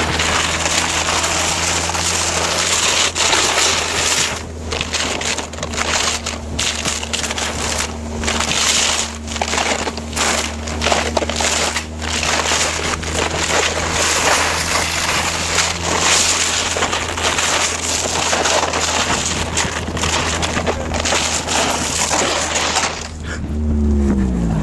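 Car driving on an icy road, with a loud, dense rush of wind and road noise and the engine's low, steady hum underneath. Near the end the engine note falls as the car slows.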